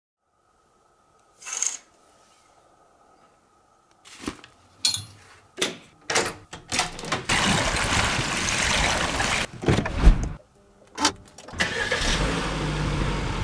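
A run of clicks and knocks from a lever door handle and door, then a few seconds of loud rushing noise. Near the end the Peugeot 508 GT's petrol engine starts and settles into a steady low idle.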